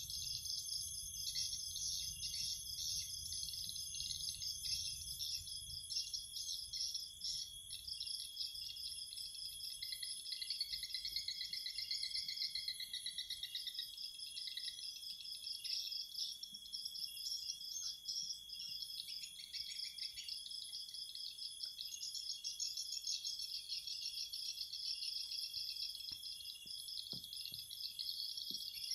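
Steady chorus of crickets and other insects, with a continuous high whine under rapid pulsing chirps; a lower trilling call joins for a few seconds near the middle.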